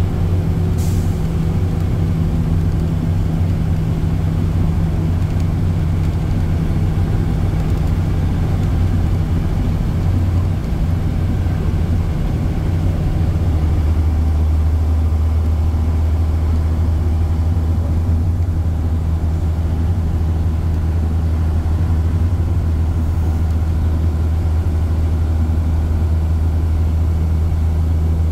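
Leyland Olympian double-decker bus running along the road, heard from inside the saloon: a steady engine and drivetrain drone whose note changes about halfway through. A short click sounds about a second in.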